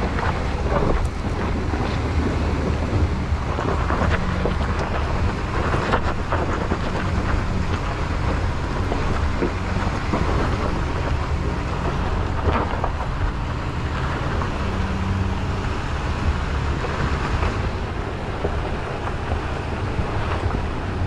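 A vehicle engine running steadily under heavy wind and rumble noise on the microphone, with a few brief knocks.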